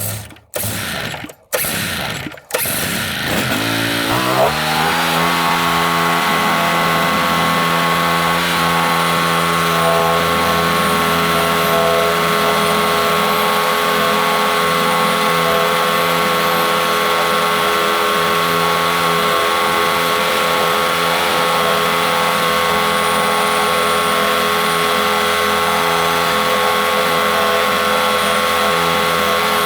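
Portable bandsaw mill's gas engine stuttering in a few short bursts, then revving up about four seconds in and running steadily at high speed, driving the band blade through the log to saw inch-thick boards.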